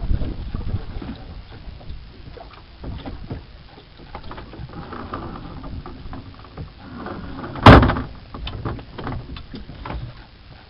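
Knocks and clatter from climbing into a small wooden boat and handling its sculling oar, with one loud thump a few seconds before the end.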